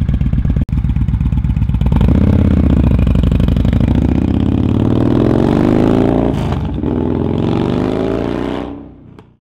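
Yamaha Bolt's air-cooled V-twin running through a Bassani Road Rage 2-into-1 exhaust, revved up and down a few times, then fading out near the end.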